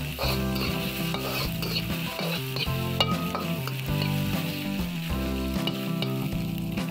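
Fried rice sizzling in a hot wok while a metal spatula stirs and scrapes it, with scattered clicks of the spatula against the pan.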